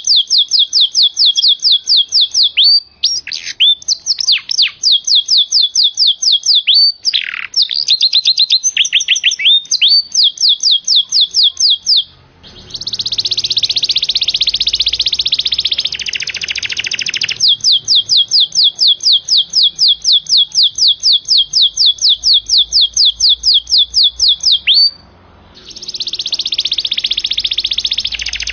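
Domestic canary singing: long runs of fast, repeated high notes that sweep downward, broken by dense rolling trills, with two brief pauses.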